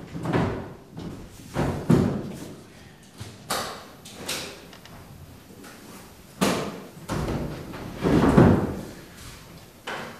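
Irregular knocks and thuds, about six in all, a second or more apart, the heaviest about eight seconds in.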